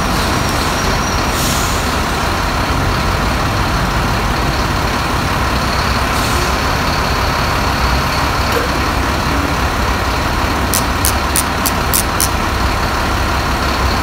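Truck diesel engine running steadily while the truck-mounted hydraulic crane is worked by radio remote. About eleven seconds in comes a quick run of about seven sharp clicks.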